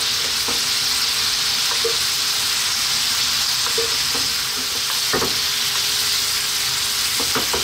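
Lemon butter sauce sizzling steadily in a frying pan around two salmon steaks as they are basted. A metal spoon scoops the sauce and knocks against the pan now and then, about five times.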